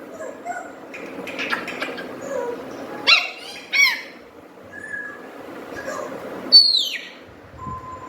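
Pet parrot whistling and chirping. It gives two short, sharp calls about three seconds in, then a loud whistle falling in pitch about six and a half seconds in, with softer chatter between.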